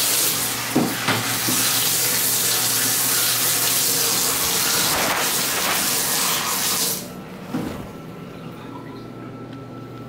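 Water running hard into a bathtub, from a Hansgrohe handheld shower head and the tub spout, then shut off abruptly about seven seconds in. Brief knocks come near the start and just after the water stops.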